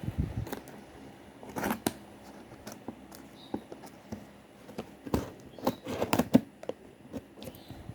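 Plastic parcel packaging being cut open and handled: irregular crinkling rustles and sharp clicks, with the loudest bursts a little past the middle.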